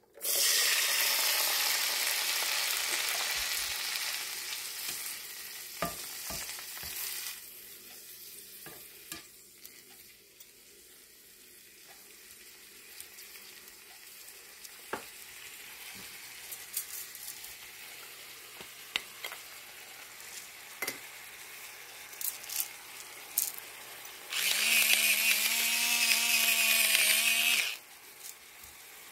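Shredded lettuce poured into hot bacon grease in a frying pan sizzles loudly at first, then dies down over several seconds. A spatula stirring it gives scattered light taps and scrapes against the pan. Near the end a louder noise with a steady low tone lasts about three seconds.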